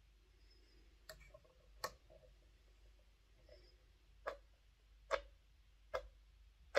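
About six sharp single clicks at uneven intervals from a model-motor magnet remagnetiser as its push button is pressed, each press pulsing the magnet of an old Airfix OO-gauge loco motor to restore its strength.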